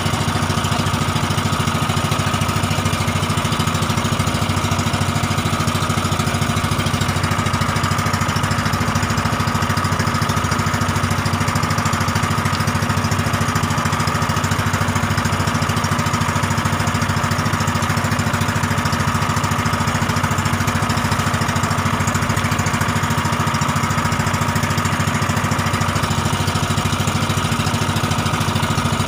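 Fishing boat's engine running steadily at an even speed, with a fast, even chugging, as the boat travels under way.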